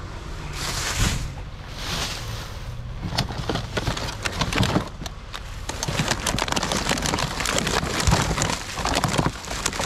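Plastic bags and packaging rustling and crinkling as items are handled: a couple of soft swishes, then dense crackling from about three seconds in.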